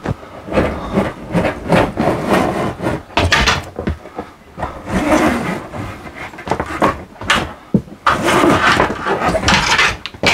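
Steel slide-room cable being pulled by hand through a crimp ferrule and eye bolt, making irregular rustling, scraping and light knocking, heaviest near the end.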